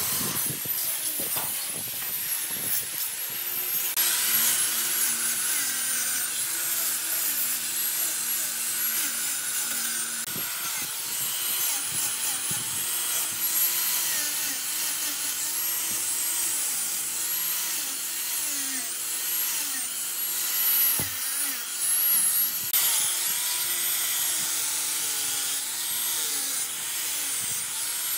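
Electric angle grinder with a sanding disc running against wooden timber. Its motor whine dips and recovers over and over as the disc is pressed into the wood.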